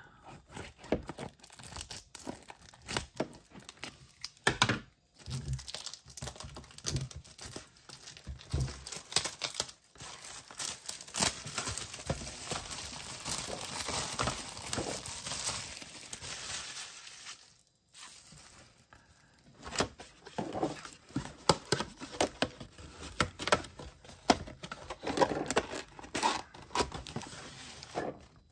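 Plastic shrink wrap being torn and crinkled off a sealed trading-card box, with a run of sharp crackles and rustles and a short pause a little past halfway.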